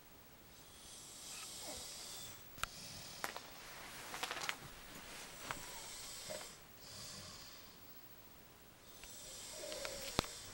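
A man snoring: several long, hissing breaths in and out, some with sharp clicking rattles from the throat.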